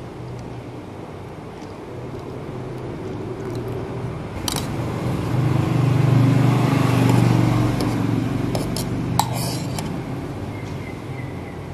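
A steady low machine hum that swells around the middle and then fades, with two sharp metal clinks of a spoon on a steel milk pitcher as milk foam is spooned onto an iced drink.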